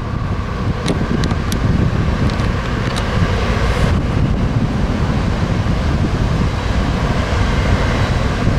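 Wind buffeting the microphone, a steady low rumble, with a few faint clicks in the first three seconds.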